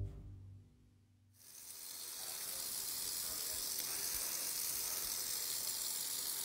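Kitchen faucet running into a stainless steel sink, a steady hiss that starts suddenly about a second and a half in, after the last of the background music fades away.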